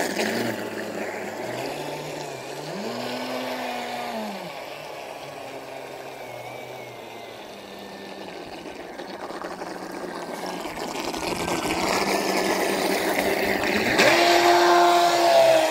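ProBoat Voracity-E electric RC speedboat running across the water. The whine of its brushless motor and the hiss of its wake fade as it heads away, then grow louder over the last few seconds as it comes back close. Near the end there is a steadier, higher whine.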